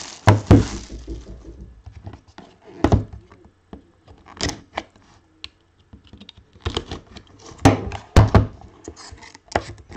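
A cardboard box handled on a tabletop: scattered thumps and knocks with scraping and rustling between them, the loudest a pair of thumps about eight seconds in.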